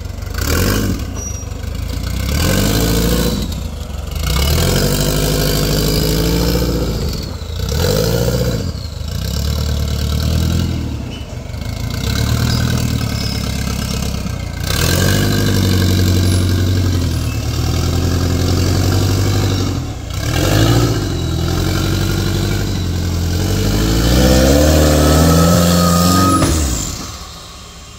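Turbocharged Subaru 2.2-litre flat-four engine of a rock crawler buggy revving up and down in repeated surges under load as the buggy climbs over boulders. The engine drops back sharply near the end.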